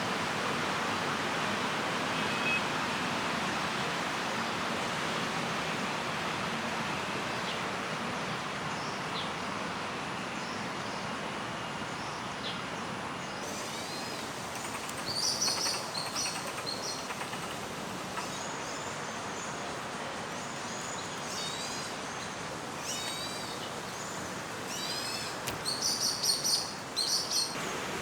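Steady background noise, then about halfway through small woodland birds start giving alarm calls: short high chirps and quick downward-sweeping notes that grow busier and louder near the end. The birds are raising the alarm at a young crested goshawk flying among the trees.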